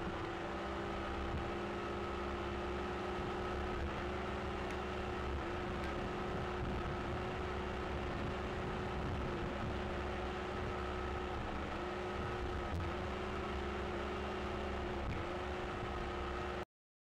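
Outboard engine of an RNLI inflatable inshore lifeboat running steadily under way, with wind and water rush; the engine note dips briefly now and then. The sound cuts off suddenly near the end.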